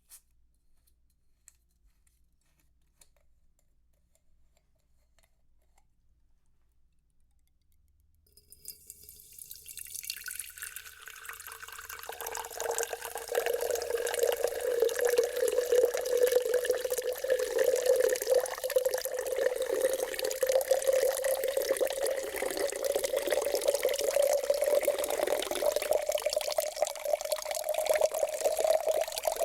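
Sparkling water poured into a glass jar, starting about eight seconds in after near silence. The pouring builds, and its tone slowly rises as the jar fills, with fizzing hiss over it.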